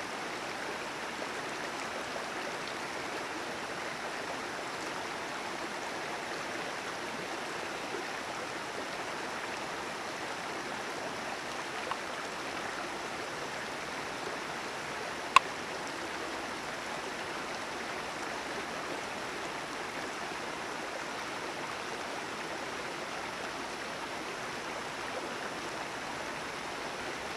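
Creek water rushing steadily, with one sharp click about fifteen seconds in and a fainter one a few seconds before it.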